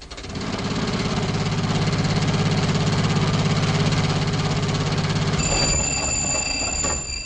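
Engine sound effect for an old jitney bus driving off: a fast, even chugging that builds up at the start, holds steady and fades away near the end. A steady high-pitched tone comes in over it near the end.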